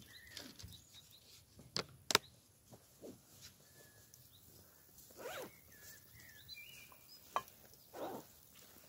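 Handling noises in grass: a couple of sharp clicks and short rustles as a soft cooler bag is moved and set down, with faint bird chirps.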